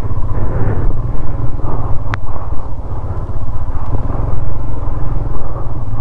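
Motorcycle engine running under load as the bike is ridden up a slippery off-road mountain track, its low rumble rising and falling with the throttle. A brief high squeak about two seconds in.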